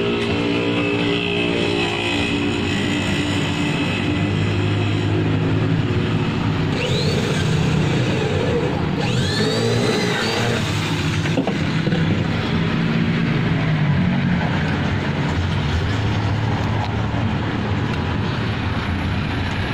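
A motor engine running steadily with a low hum whose pitch shifts a little, with a few short squeaky chirps about halfway through and a sharp click soon after.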